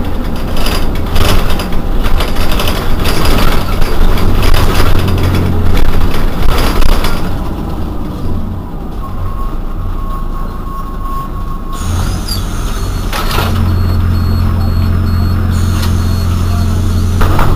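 Irisbus Citelis 12 city bus running, its engine giving a steady low hum. The engine is loud for the first several seconds, drops quieter in the middle while a steady beep-like tone sounds for about three seconds, then drones strongly again near the end.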